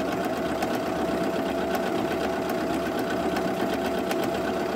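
Viking Jade 20 computerized sewing machine running steadily while stitching a decorative continuous-heart stitch. Its motor hums at one held pitch under the quick mechanical clatter of the needle.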